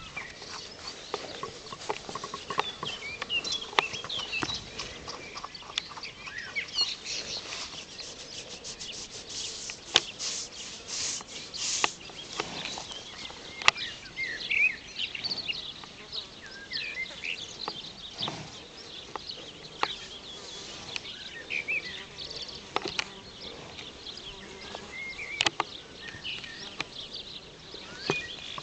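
A horse snorting with pleasure while being scratched, with a rapid fluttering snort about ten seconds in and another blow near the middle. High, short chirps and small clicks are scattered throughout.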